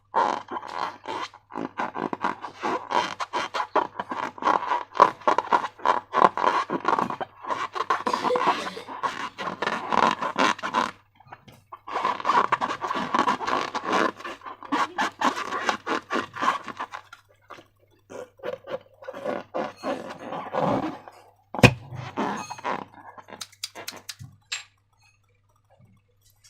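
Slime being squished and worked by hand, giving rapid wet clicking and crackling. The clicking thins out after about two thirds of the way, with one sharp snap and then a stop near the end.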